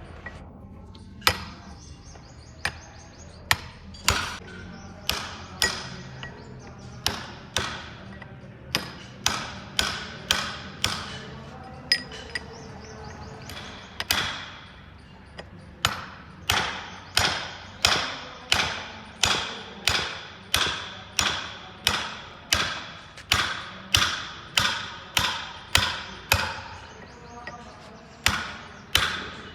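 Hammer blows on metal, each with a short ring, irregular at first and then at a steady pace of a little over one blow a second.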